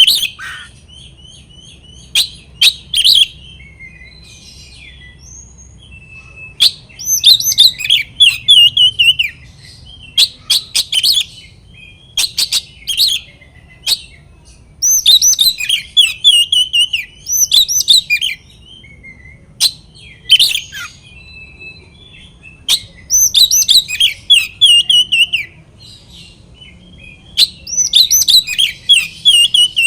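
Oriental magpie-robin (kacer) singing loud bursts of sharp, fast-gliding whistles and chatter, each burst about one to two seconds long with short pauses between. This is a lure song, meant to rile rival males into singing back.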